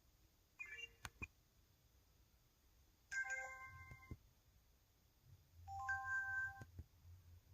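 EV-W350's electronic interface sound effects: three short chimes of steady beep tones, each under a second and ending in a click, about half a second in, about three seconds in and near six seconds in.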